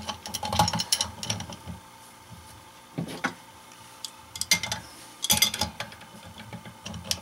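Metal clicks and clatter of hand tools working on brass plumbing fittings, in several short bunches.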